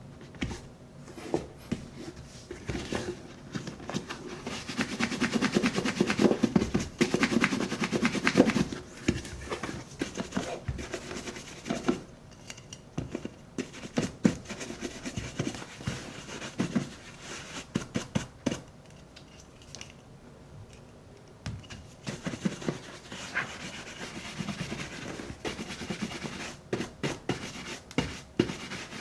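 Cashmere shoe brush stroked quickly back and forth over the leather of a Red Wing 8080 boot to raise a shine. The rubbing strokes come in runs, densest and loudest from about four to nine seconds in, with a quieter pause a little past the middle.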